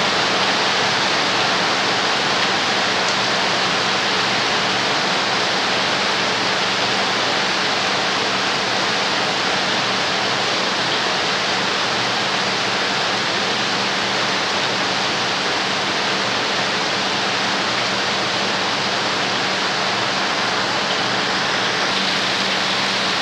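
Heavy rain falling on a corrugated metal roof and pouring off the eaves: a steady, dense hiss.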